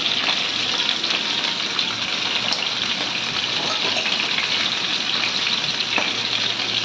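Turmeric-and-salt-marinated fish steaks frying in hot mustard oil in a pan: a steady sizzle.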